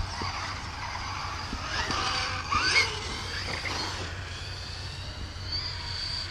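Losi Rock Rey RC rock racer driving away: its brushless electric motor and drivetrain whine, sweeping up in pitch as it speeds up about two and a half seconds in, along with tyre noise on pavement.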